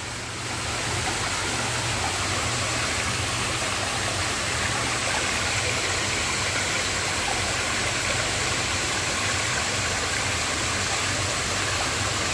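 Water splashing steadily into a koi holding tank, with a low steady hum underneath. The splashing grows a little louder about half a second in.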